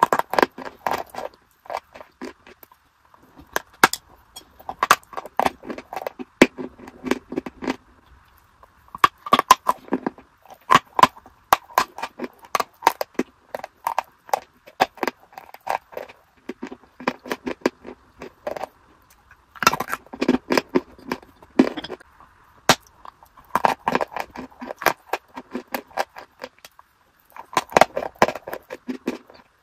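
Close-miked crunching of hard white blocks being bitten and chewed: clusters of sharp cracks and crunches, with short pauses between bites every few seconds.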